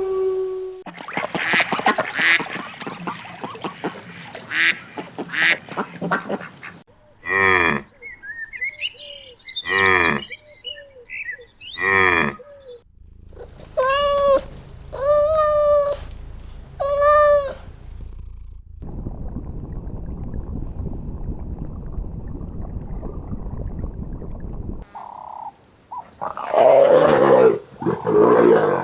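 Animal calls from several short clips in turn. First comes a stretch of clicks and rustling noise, then a run of short calls that rise and fall in pitch. Three steady calls of about a second each follow, then an even hiss, and a loud call near the end.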